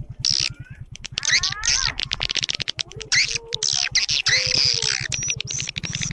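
Swiftlet lure recording: edible-nest swiftlets chirping and twittering in dense, rapid overlapping calls, some sweeping up or down in pitch. A fast low pulsing hum runs underneath.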